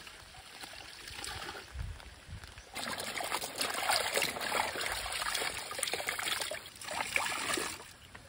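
Clothes being hand-washed in a plastic basin of water: splashing, sloshing and dripping as a cloth is scrubbed and lifted, much louder from about three seconds in.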